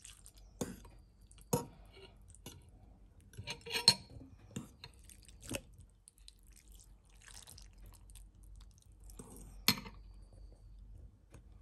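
Fork and spoon clinking against a ceramic bowl of noodle soup: a string of sharp clinks, the loudest about four seconds in and another a couple of seconds before the end.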